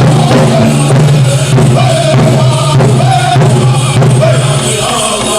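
Powwow drum group singing a chant over a large shared drum struck in a steady beat; the low drum sound drops out near the end.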